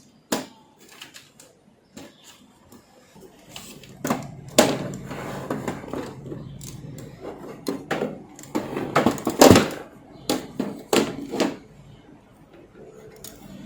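Clicks, taps and knocks of hands taking apart an LED TV: screws, cable latches and plastic and metal panel parts being handled, with rustling between them. The strikes come irregularly, the loudest about nine and a half seconds in.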